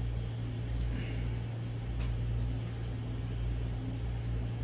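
Steady low machine hum, with two faint clicks about one and two seconds in. The clicks come from handling the slingshot's stiff spring-loaded part.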